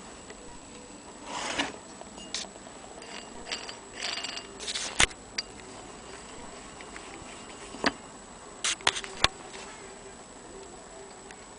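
Antique Willcox & Gibbs hand-crank sewing machine being handled and turned by its crank: scattered metallic clicks and short rattles from the mechanism, with sharp clicks about five, eight and nine seconds in.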